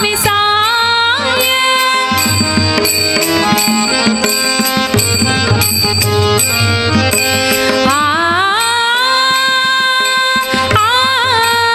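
Devotional bhajan music: a women's bhajan group with percussion keeping a quick beat, and a sung line that slides up and is held from about eight seconds in.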